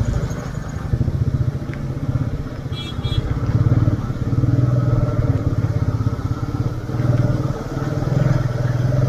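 Royal Enfield Meteor 350's single-cylinder engine running under way, its note swelling and easing with the throttle. A short high beep sounds about three seconds in.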